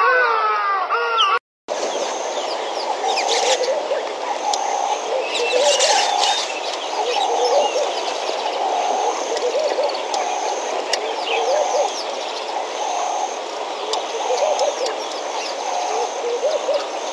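A wavering voice like a crying child for about the first second, cut off by a short dropout. Then a steady chorus of frogs at the waterhole, one call repeating a little faster than once a second, with smaller chirps and a repeating high trill behind it.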